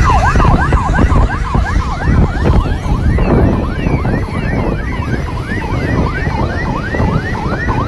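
Several escort sirens of a motorcade sounding together, each sweeping rapidly up and down a couple of times a second and overlapping out of step, over the low rumble of the moving vehicles and road.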